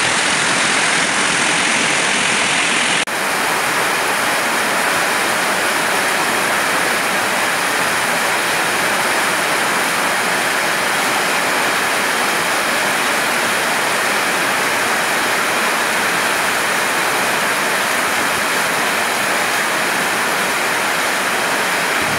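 Steady rush of flowing water, loud and unbroken, with a brief break about three seconds in.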